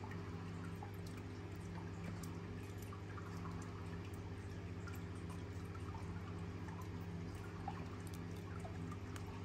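Steady low hum with a faint trickling hiss over it and a few scattered light ticks.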